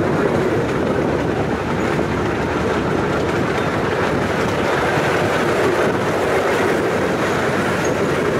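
Miniature ride-on train running along its track: the open passenger cars rolling with a steady rumble of wheels on the rails.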